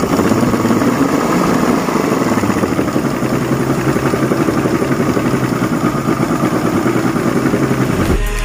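Yamaha outboard motor running steadily with its cowling off, its fast, even firing pulses plainly heard.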